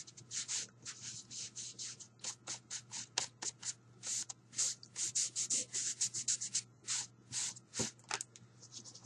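Quick back-and-forth swishes of a soft pad rubbed over paper, about four or five strokes a second and uneven in strength, as ink is worked across the sheet.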